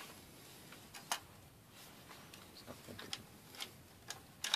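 Quiet clicks and rattles of an AR-style rifle being handled: a sharp click about a second in, a few small clicks after it, and a short run of clicks near the end.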